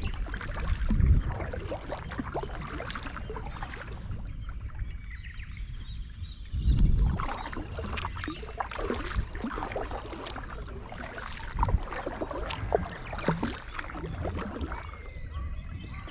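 Kayak on the water, with the paddle dipping and splashing and scattered knocks and clicks against the hull. Low thumps sound about a second in and again around seven seconds in.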